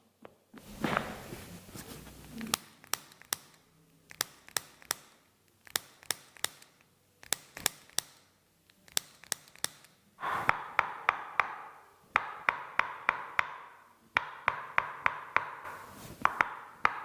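Runs of sharp clicking taps, about three or four a second in short bursts, joined about ten seconds in by a steady hiss behind them.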